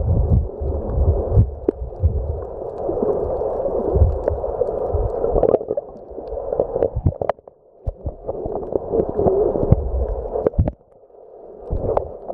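Underwater water noise heard through a submerged camera: a muffled gurgling rush with low thumps and scattered sharp clicks. It drops away briefly twice in the second half.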